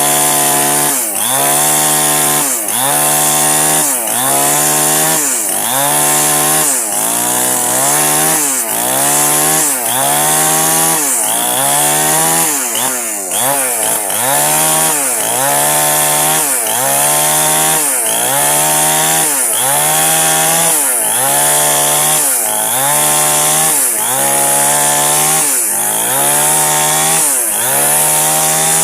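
Two-stroke chainsaw ripping a log lengthwise. The engine note dips under load and climbs back in a steady rhythm, a little more than once a second.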